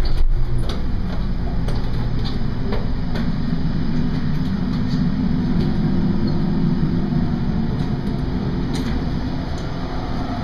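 Steady low rumble of the R/V Knorr's engines and machinery below decks, a little stronger in the middle, with scattered light knocks and footsteps on the stairs and corridor floor.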